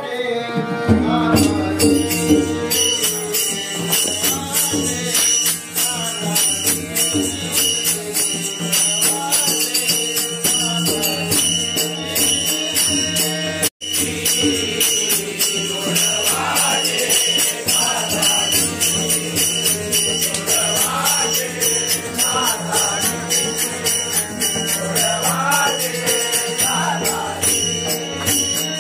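A bhajan group singing a devotional song to a two-headed barrel drum and small brass hand cymbals that keep a steady, ringing beat. The sound cuts out for an instant about halfway through.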